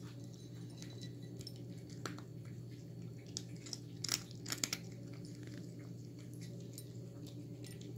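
A cat chewing and eating from a ceramic bowl: irregular small clicks and smacks, busiest around four to five seconds in, over a steady low hum.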